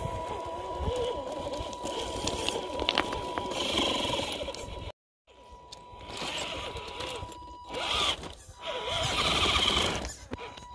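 Electric motor and drivetrain of a scale RC rock crawler whining as it crawls over rocks, the pitch wavering up and down with the throttle, with low rumble from wind on the microphone. The sound cuts out briefly about five seconds in, then carries on.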